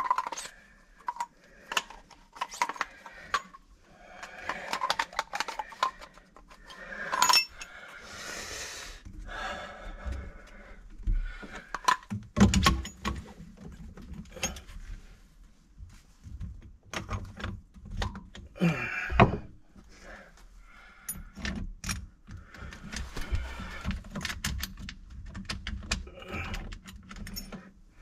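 Hands working a garbage disposal at its sink mount under a kitchen sink: scattered clicks, knocks and clattering of plastic and metal parts, with a few heavier knocks about halfway through.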